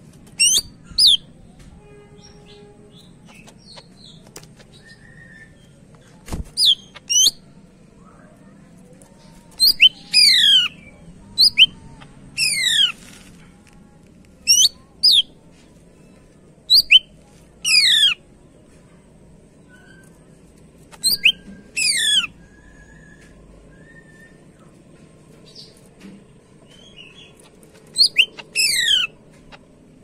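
Green leafbird (cucak ijo) singing: loud, sharp whistled notes that sweep steeply downward from very high to mid pitch. They come in quick bursts of a few strokes each, every one to three seconds, with short pauses between.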